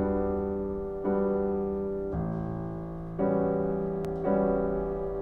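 Slow solo piano music played back on a hi-fi system: a chord struck about once a second, each one ringing and fading before the next.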